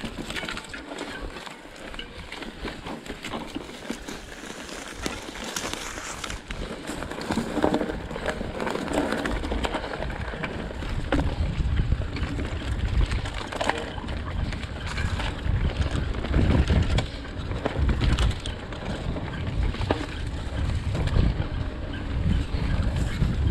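Mountain bike riding over a rough dirt trail: tyres rolling on dirt, with frequent small clicks and knocks from the bike rattling over bumps. Wind buffets the microphone, heavier from about eight seconds in.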